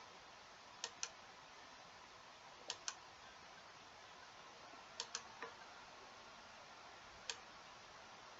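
Faint computer mouse clicks over near-silent room tone: four quick groups a couple of seconds apart, mostly pairs of clicks.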